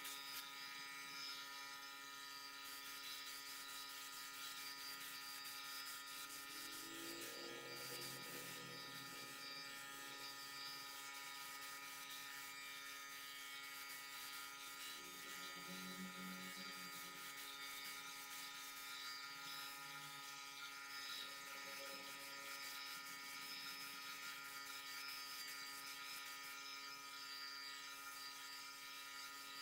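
Small air compressor running with a steady electric hum.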